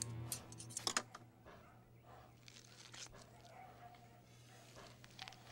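Small scissors snipping a dog's fur around a wound: a cluster of sharp snips in the first second, then quieter snips and the soft rustle of gauze dabbing the wound, over a low steady hum.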